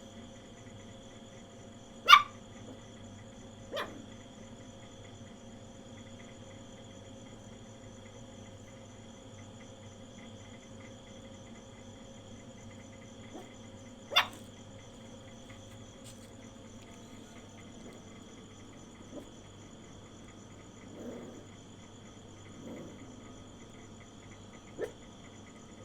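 A small puppy giving a few short barks spread far apart, the loudest about two seconds in, over steady insect trilling.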